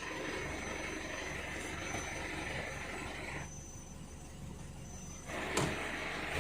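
Isuzu D-Max 3.0-litre four-cylinder diesel engine running steadily at idle, with a single sharp click a little before the end.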